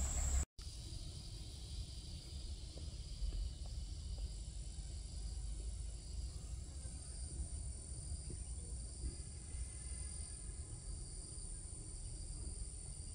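Outdoor ambience of insects trilling steadily at a high pitch, over a low rumble, with a brief dropout to silence about half a second in.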